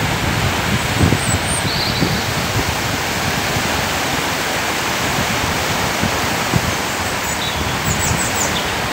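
Flooded river rushing fast and high past trees, a steady rushing noise, with wind gusting on the microphone.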